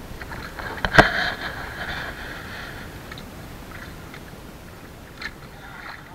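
Overhead fishing reel's drag buzzing as a hooked squid pulls line off against the bent rod, starting just after a sharp click about a second in and fading after about two seconds.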